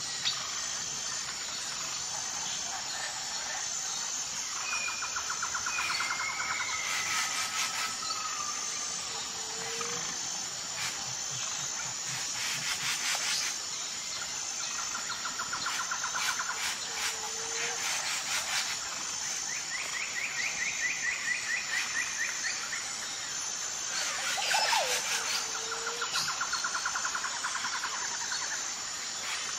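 Birds calling with repeated rapid trills and short whistled notes over a steady high-pitched insect chorus.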